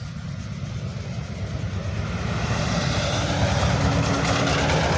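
Road vehicle approaching, its engine rumble and tyre noise growing steadily louder.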